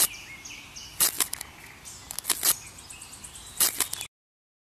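Clusters of sharp clicks or cracks, four in all about a second and a quarter apart, over faint high chirping; the sound cuts off suddenly about four seconds in.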